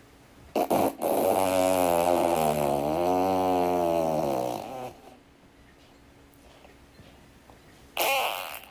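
A long, drawn-out fart of about four seconds, its pitch wobbling and dipping in the middle, with a short noise just before it. A second, shorter fart comes near the end.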